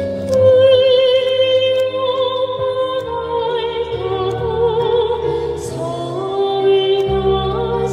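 Two women singing a Korean children's song (동요) together, a soprano and a young traditional-style singer, holding long notes with vibrato over electric keyboard accompaniment, heard through PA speakers.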